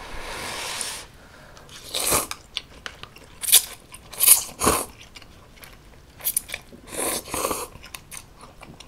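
Close-miked eating of spicy instant ramyeon: a long slurp of noodles in the first second, then a run of short, loud slurps with chewing between them.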